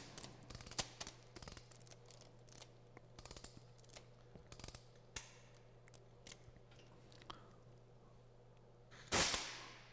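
Metal clicks, scrapes and ratchet-like clatter of an MG 131 machine gun's action being worked slowly by hand, with a louder rasp that falls in pitch about nine seconds in.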